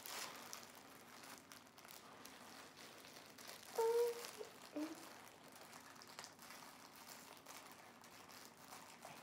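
Plastic clothing package crinkling and rustling as it is handled and opened by hand, with a short hummed note about four seconds in.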